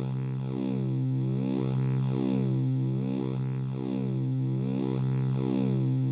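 Instrumental background music with a steady bass line and notes changing about twice a second.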